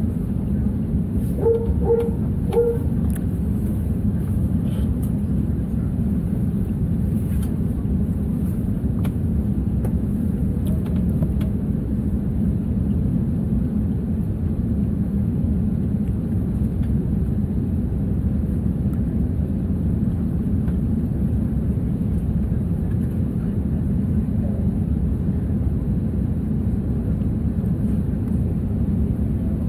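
Steady low rumble inside the cabin of an Airbus A321 airliner on the ground. A dog in the cargo hold barks three times in quick succession about two seconds in.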